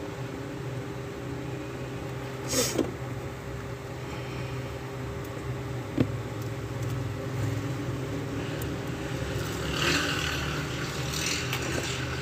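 Steady machine hum, with a few sharp clicks of small metal tools on a workbench about two and a half seconds and six seconds in, and a patch of rustling and tapping near the end.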